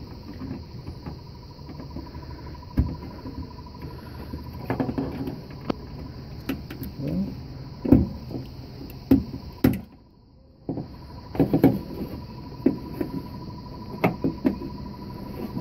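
Irregular clicks and knocks from hands working inside an open car door shell, fitting the door lock actuator's electrical connector and linkage.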